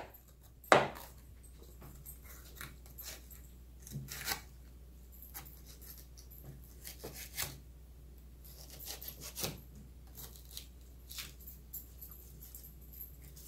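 Kitchen knife cutting a yellow bell pepper on a plastic cutting board: scattered irregular clicks and taps of the blade through the pepper and on the board, with one sharper knock just under a second in.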